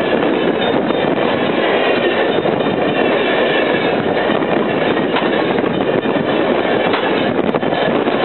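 Amtrak Coast Starlight passenger train passing close by: a loud, steady rumble of its wheels running over the rails.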